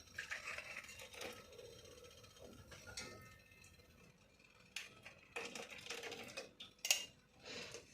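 A few faint, sharp clicks and taps of small kahwa cups being handled and set down, with quiet rustling between.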